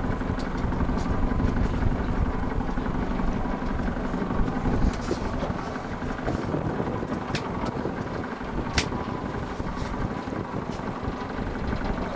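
A fishing boat's engine running steadily, a constant low hum.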